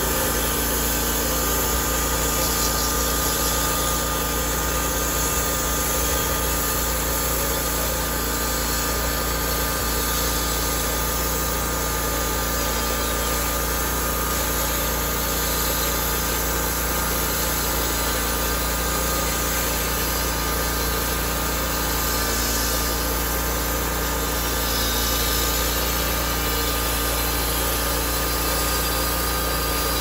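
Homemade bandsaw mill's small engine running steadily at speed while its band blade is pushed through a pine log.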